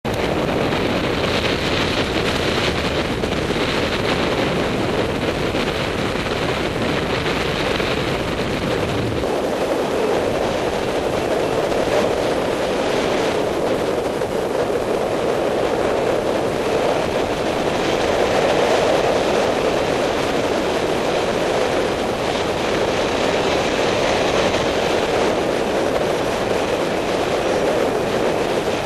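Airflow rushing over the microphone of a camera carried on a paraglider in flight: a steady wind rush, its deep rumble easing about nine seconds in.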